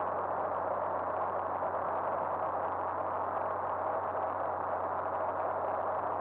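Steady cabin drone of a Cirrus SR20 in flight: its six-cylinder Continental IO-360 engine and propeller with airflow rushing past the cabin, a low steady hum under an even rushing noise.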